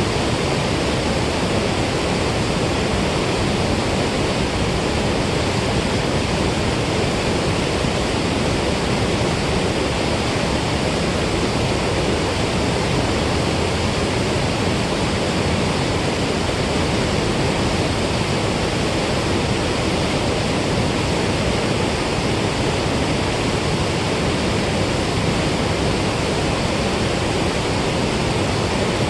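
Rushing water from the Milford Lake dam spillway outflow: a loud, steady roar that keeps an even level throughout.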